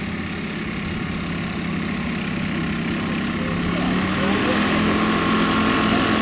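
Rotax 277 single-cylinder two-stroke engine and propeller of an Earthstar Laughing Gull ultralight running at low power while the aircraft taxis, growing steadily louder as it comes closer, with the pitch shifting a little about four seconds in.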